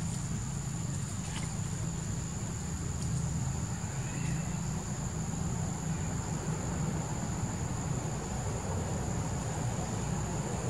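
Insects droning, one steady high-pitched tone without a break, over a steady low rumble. A faint short chirp comes about four seconds in.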